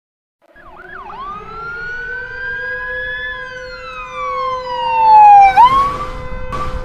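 Emergency alert alarm siren: a wailing tone that chirps quickly up and down twice, then slowly rises and falls over about four seconds and sweeps sharply back up, over a steady lower drone. Two short bursts of noise come near the end.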